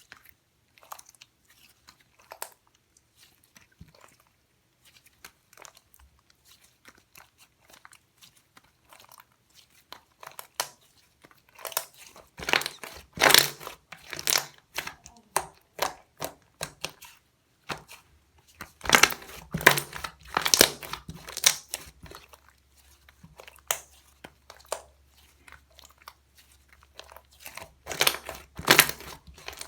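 Cream slime being squeezed and stretched by hand, making sticky crackling clicks and pops. Scattered soft clicks build into three louder, dense runs of crackling.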